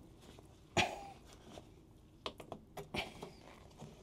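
Light clicks and knocks of a metal mud-flap bracket and plastic push-in fastener being handled and fitted against the underside of a van's wheel arch. One louder knock comes about a second in, then a quick cluster of clicks near the end.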